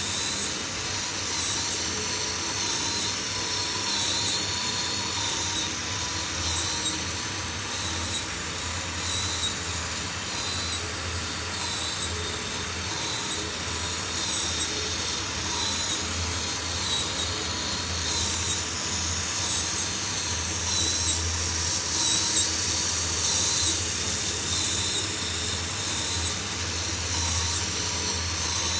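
Miniature four-cylinder OHV diesel engine model running steadily on its small electric drive, a continuous mechanical whir of motor, gears and valve train with a thin high-pitched whine over a low hum.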